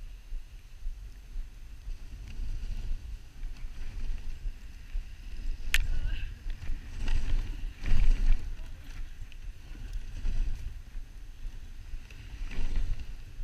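Dog sled gliding over a packed snow trail: a steady low rumble and hiss from the runners, with wind buffeting the microphone. A sharp click comes about six seconds in.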